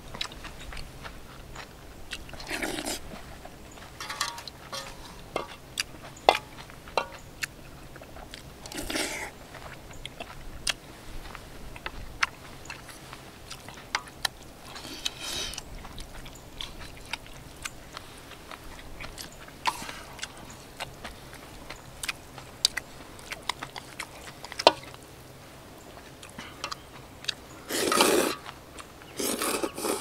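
Close-up eating of doenjang noodle soup with beef brisket: chewing, sharp clicks, and several loud slurps of noodles, the longest near the end.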